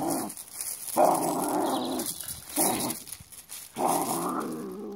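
Miniature schnauzer growling at a stone: three rough growls, a long one about a second in, a short one, and another long one near the end.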